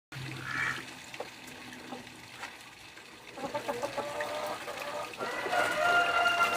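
Backyard chickens clucking, the calls growing busier about halfway in and ending in a longer drawn-out call.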